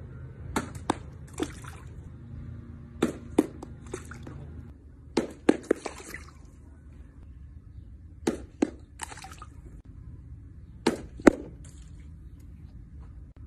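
Golf shots chipped from a pool deck, about five in a row. Each is a pair of sharp club-on-ball clicks followed by a short splash as a ball drops into the pool.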